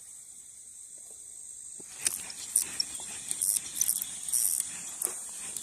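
Steady high insect buzz over the pond. From about two seconds in come scattered rustles and small clicks as the fishing rod is picked up and handled.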